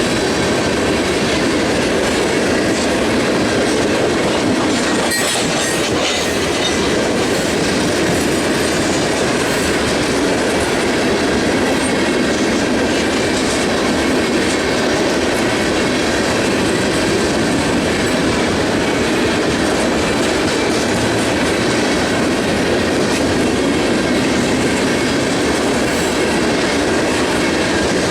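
Freight train of molten sulfur tank cars rolling past on the rails: a steady, loud rumble with wheel clatter.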